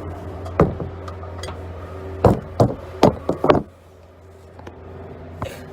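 Hand tools knocking and clanking against the car and each other: a few sharp knocks, then a quick cluster of five in the middle and one more near the end. A steady low hum under them cuts off suddenly just after the cluster.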